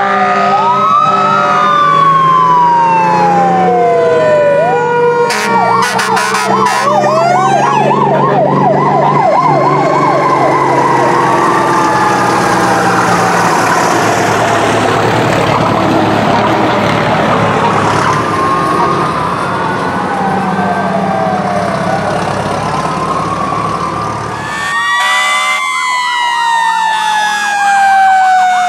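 Several fire trucks' sirens sound at once as the trucks pass one after another. Sirens wail up and down and yelp in a fast warble over the low hum of the truck engines. About three-quarters of the way through, the mix changes abruptly to a fast yelp and one long falling wail.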